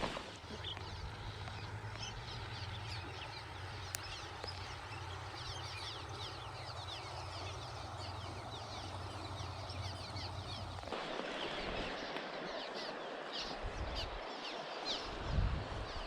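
Birds chirping, many short falling chirps overlapping throughout, over a steady low hum that cuts off suddenly about eleven seconds in.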